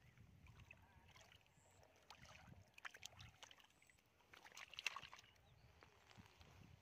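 Faint sloshing and splashing of hands groping through shallow muddy water, with a few light clicks, loudest about five seconds in.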